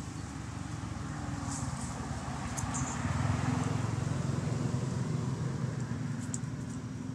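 Engine hum of a passing motor vehicle, a steady low drone that swells about three seconds in and slowly fades, with a few faint high clicks.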